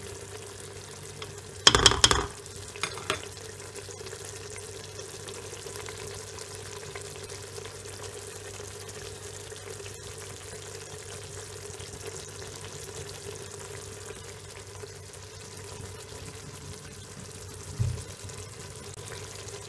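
Goat tripe and yogurt gravy sizzling steadily as it cooks in an aluminium pot, over a faint steady hum. A metal spoon clatters against the pot about two seconds in, followed by a few lighter knocks, and there is a single low thump near the end.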